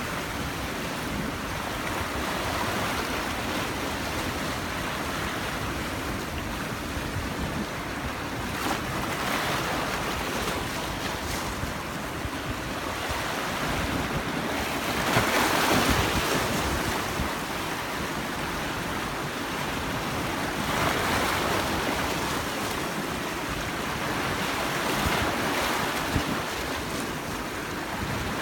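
Sea waves washing onto the shore: a steady rush with four or so surges as waves break, the loudest about halfway through.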